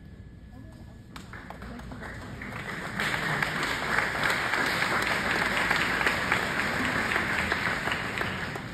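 Audience applauding. The clapping starts about a second in, swells to full strength at about three seconds, then fades near the end.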